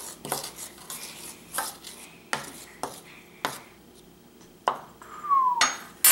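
Metal spoon stirring a dry mix of baking soda and cinnamon in a bowl: a run of scrapes and clinks against the bowl, closely spaced for the first few seconds and then sparser. A sharp, loud knock near the end.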